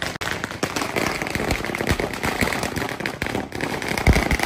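Firecrackers going off in a rapid, continuous string of small cracks and pops.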